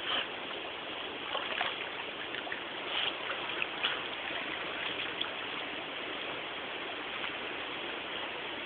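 Steady rush of running stream water, with a few light splashes in the first five seconds.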